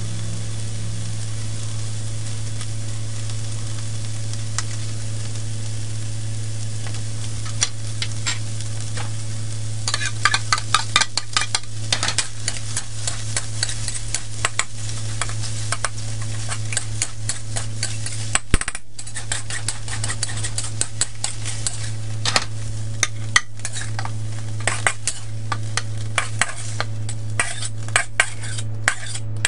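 Fried rice sizzling in a steel wok as it is stir-fried. From about a third of the way in, rapid clicking and scraping strokes of the spatula against the wok come in, over a steady low hum.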